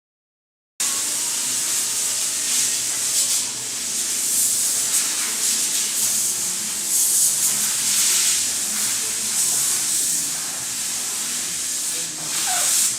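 Compressed air hissing loudly and steadily, starting suddenly about a second in and cutting off at the end, with small swells along the way.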